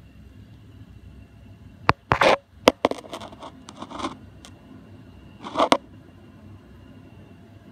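Handling noise on a lab bench: a few sharp clicks and short scraping rustles about two seconds in, with another scrape and click near the end, over faint room hiss.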